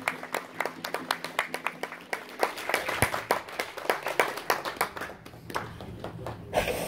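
A small group of people clapping by hand, a scattered run of claps that thins out near the end. The acoustic guitar's last chord rings out under the first couple of seconds.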